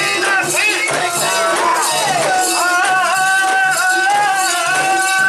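Japanese festival music during a mikoshi procession: voices singing and calling, one holding a long, wavering note through the second half, over a steady repeating beat and metallic jingling.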